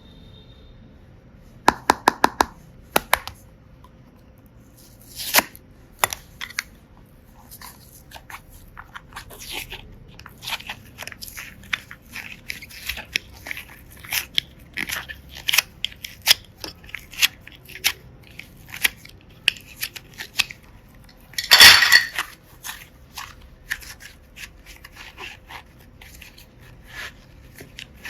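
Slime with small plastic blocks, hearts and seashells mixed in, being squeezed and picked through by hand: an irregular run of crunching, crackling clicks. A quick rattle of sharp clicks comes about two seconds in, and a louder, longer crunch comes a little past the two-thirds mark.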